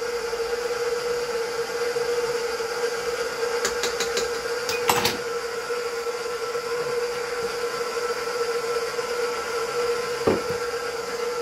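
Stand mixer motor running steadily with a constant hum, beating cake batter in a steel bowl. A few sharp clicks come about four to five seconds in and a single knock near the end.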